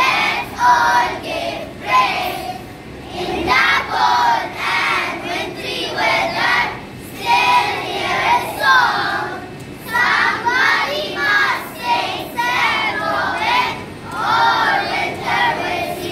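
A class of young schoolchildren singing together in unison, in short phrases.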